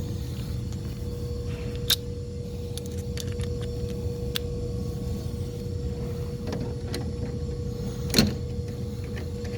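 Steady low machinery hum with a constant tone, typical of refrigeration equipment running. A few sharp clicks and knocks sound over it, the loudest about two seconds in and another just after eight seconds.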